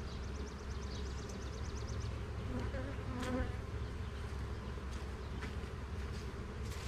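Honey bees buzzing around an opened Langstroth hive, a steady hum. A rapid high trill of ticks runs through the first two seconds, and a short higher sound comes about three seconds in.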